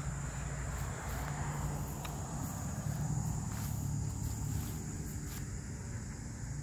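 Summer garden ambience: a steady, high insect trill over a low, steady rumble.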